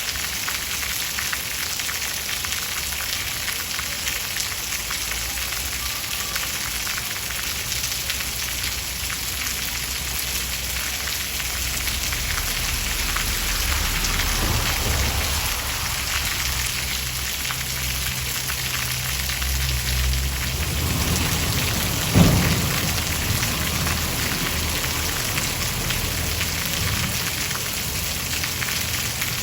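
Steady rain falling, with a low roll of thunder building through the middle and a sharp thunderclap about three-quarters of the way through, followed by more rumbling.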